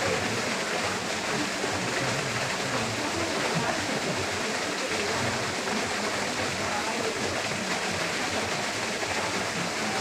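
Small waterfall pouring steadily: a constant, even rush of falling water.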